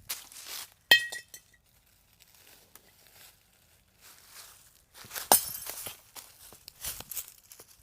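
A hard object is struck sharply about a second in and gives a brief high ring like a clink. A second, harsher clatter comes just past five seconds, with light crunching and rustling between.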